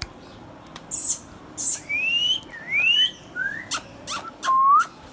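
Indian ringneck parakeet whistling a few rising notes, with harsh scratchy calls about a second in and scattered sharp clicks. The loudest note, near the end, dips and then rises.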